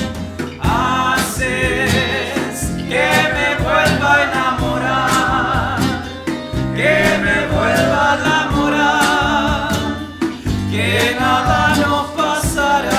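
A folk band playing a song: a lead vocal sung in four long phrases over acoustic guitar, tiple, bass and drums.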